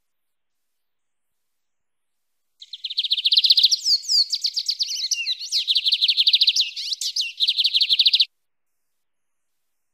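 Lined seedeater (bigodinho) singing a canto mateiro song: fast, high trills broken by a few slurred, sliding notes, starting about two and a half seconds in and stopping abruptly about five and a half seconds later.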